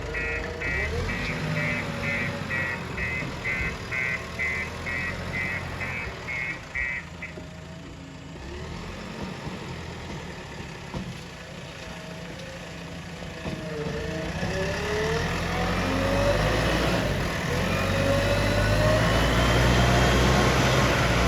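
Diesel engine of a JCB 3DX backhoe loader running, with a reversing alarm beeping about twice a second for the first seven seconds. In the second half the engine revs up and grows louder as the machine works.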